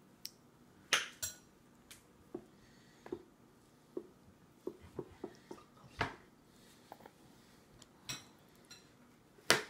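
Plastic baby spoon knocking and scraping on a plastic high-chair tray: irregular light taps and clicks, with a few sharper knocks, the loudest just before the end.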